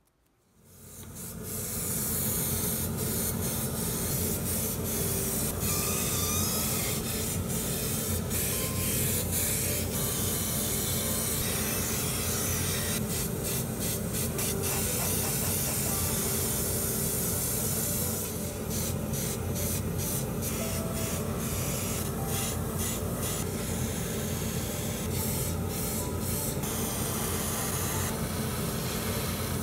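Airbrush hissing as it sprays paint, the hiss cutting in and out in quick bursts as the trigger is worked, over a steady low hum. The sound fades in over the first second or two.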